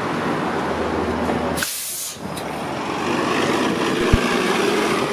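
Diesel city bus running close by, with a short hiss of its air brakes about one and a half seconds in; the engine grows louder in the second half.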